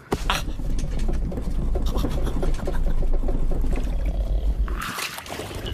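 Cartoon sound effect of a runaway caravan rolling downhill: a heavy low rumble with clattering that stops about five seconds in, giving way to a hiss.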